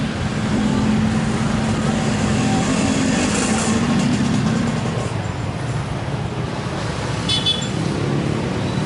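Road traffic with motorcycle and car engines running. There is a steady engine hum through the first half, then a brief high chirp about seven seconds in.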